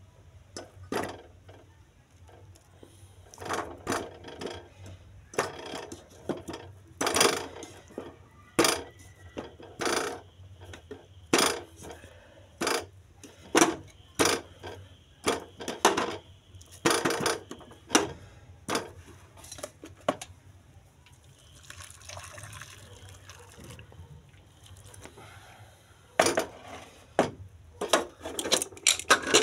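Chunks of yam dropped one by one into an aluminium pressure cooker, each landing with a knock against the metal pot, irregularly about once a second. Around three-quarters of the way through the knocks give way to a quieter stretch of steady rushing noise, then start again near the end.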